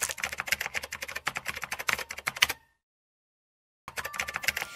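Typewriter typing sound effect: a rapid run of key clacks for about two and a half seconds, a second's pause, then a few more clacks near the end.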